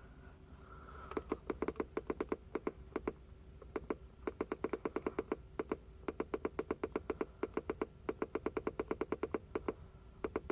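Rapid, repeated key presses on a handheld diagnostic scan tool, scrolling through its data lists: runs of short clicks at about seven a second, broken by brief pauses.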